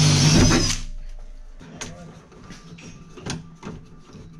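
Cordless drill spinning at high speed with a high whine, then stopping suddenly about a second in. Scattered light clicks and knocks of hand work with a screwdriver follow.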